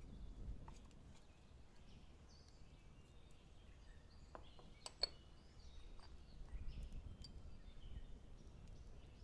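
Quiet outdoor ambience: faint bird chirps over a low rumble, with a few faint sharp clicks, the loudest about five seconds in.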